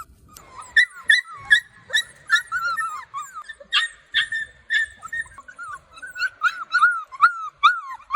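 Several puppies whining and crying in short, high-pitched, overlapping cries, several a second, crying for attention.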